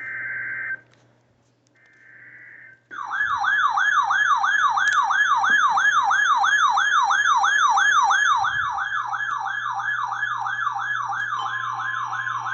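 Emergency Alert System broadcast alert: a few short buzzing data bursts of the digital header, then a loud warbling siren-like alert tone that sweeps up and down about three times a second, with a steady tone joining in near the end.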